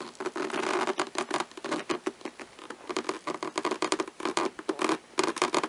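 Gloved hands pressing hard on a Corvette C5 side-mirror glass and its plastic backing plate, trying to force it onto the mirror motor: a rapid, scratchy crackle of glove fabric and straining plastic, easing off briefly twice. The glass is not yet seated.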